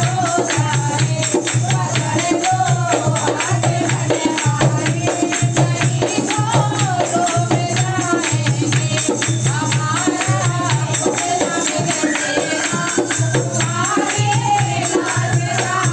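Women singing a Krishna (Shyam) bhajan together, backed by a dholak drum, hand-clapping and jingling percussion in a quick steady rhythm.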